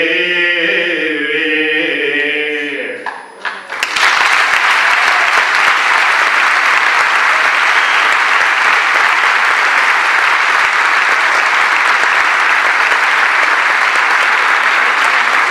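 A man's voice holds a long sung final note that fades out about three seconds in. About four seconds in, audience applause starts and continues steadily.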